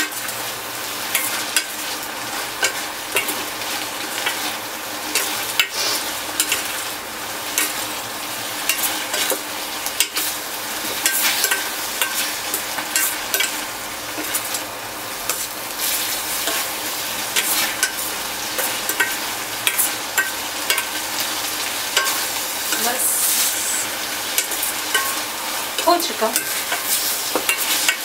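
Paneer in a thick masala gravy sizzling in a stainless steel kadai over high heat while a steel spoon stirs and scrapes the pan, with frequent light metal-on-metal clicks. The sizzle is the last of the water being cooked off so the gravy dries down.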